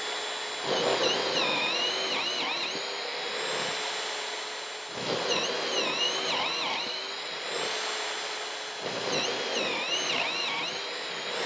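Cordless hammer drill running on speed 2 with the trigger held down, boring three 3/4-inch holes in a row into a wooden beam. Its motor whine sags in pitch three times as the bit bites and chews through the wood, then picks back up between holes.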